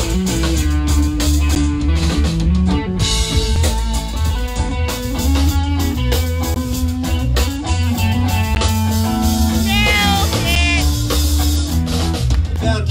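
Live band playing an instrumental passage: electric guitars, bass guitar and drum kit, amplified, with no vocals.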